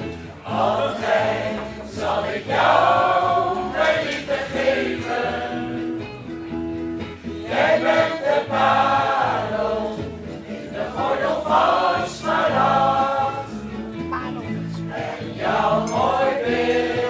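A choir singing in phrases with short breaks, over steady held low notes.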